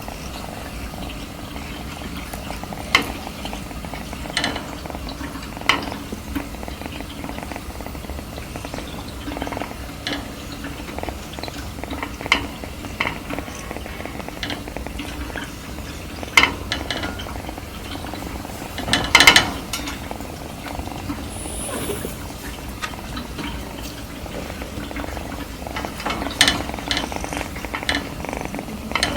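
Kitten purring softly in a steady low rumble, with occasional sharp clicks and taps now and then, the loudest cluster about two-thirds of the way through.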